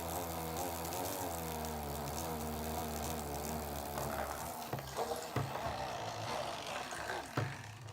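Small 17-turn brushed RC car motor running underwater in a bucket of soapy water on a 7.2-volt pack: a wavering whine over churning water. The whine weakens about four seconds in, and a few clicks follow.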